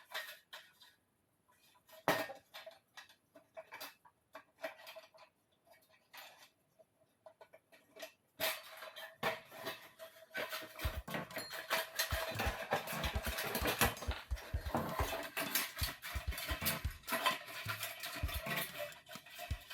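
Small metal parts of a patio heater's gas valve and pilot assembly clinking, knocking and scraping as they are worked loose and pulled out by hand. A few scattered clicks at first, then a busy run of clattering from about eight seconds in.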